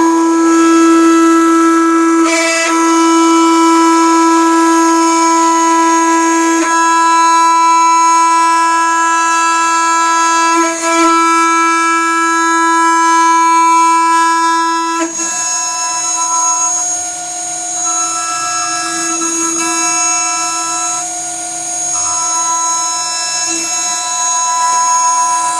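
CNC router spindle whining at a steady high pitch while milling cellulose acetate eyeglass temples. The tone changes character a few times as the cut changes.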